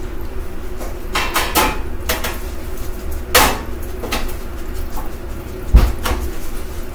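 Kitchenware being handled: a string of sharp knocks and clinks, the loudest a heavier thump about six seconds in, over a steady low hum.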